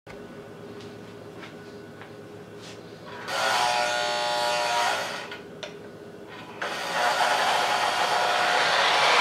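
Lionel O gauge F3 diesel model train set: a steady electric hum, then a loud buzz lasting about two seconds starting about three seconds in. After that the locomotive's running noise on the three-rail track rises and keeps getting louder.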